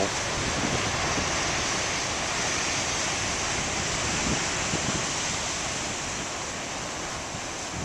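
Big ocean waves breaking: a steady, rushing wash of surf that eases slightly toward the end.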